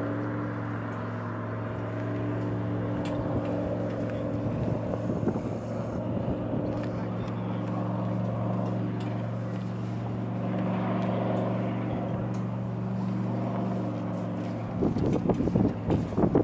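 Speedboat engine running steadily at speed as the boat passes, a low even drone. Near the end, gusts of wind buffet the microphone.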